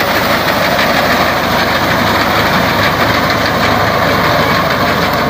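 2003-model Ghazi tractor's diesel engine running steadily under load as its front-mounted reaper cuts standing wheat.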